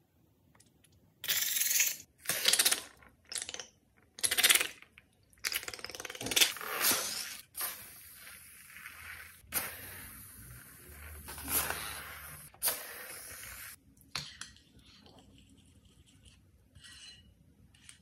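Coloured liquid slime squirting and spluttering out of the necks of squeezed rubber balloons into a glass bowl: four short bursts, then a longer uneven stretch of spluttering that stops suddenly. A few faint scrapes of stirring near the end.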